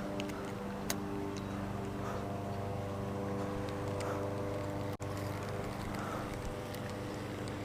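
A steady, low mechanical drone holding one even pitch, with a few faint clicks over it.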